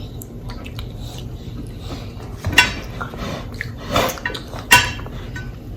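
Cutlery and dishes clinking, with three sharp clinks about two and a half, four and nearly five seconds in, the last the loudest.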